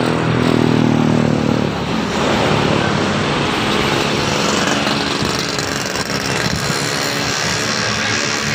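A heavy road vehicle passes close by, its engine note falling in pitch over the first two seconds as it goes past. Then comes a steady rush of traffic and tyre noise.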